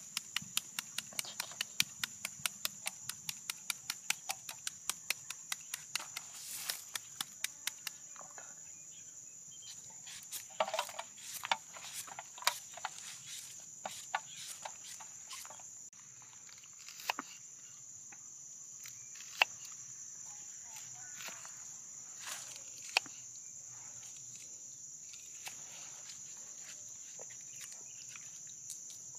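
A knife hacking rapidly into a hand-held green mango, about four cuts a second for the first several seconds, then slower scattered cuts and a few sharper knocks. A steady high-pitched insect drone runs underneath.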